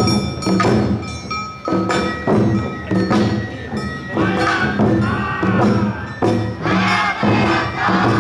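Awa odori band (narimono) playing: taiko drums beating under the steady ringing of kane bells, with sliding high melodic lines in the middle and again near the end.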